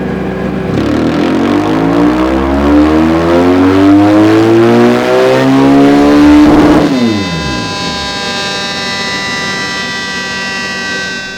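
BMW R 1200 GS boxer twin with a Dominator aftermarket exhaust, revving up steadily in one long pull on the dyno for about five seconds, then shutting off so the revs fall quickly. After that comes a steady, unchanging sound of several held pitches.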